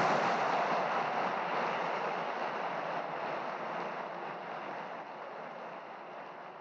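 Audience applauding, a dense even clapping that starts suddenly and slowly fades away.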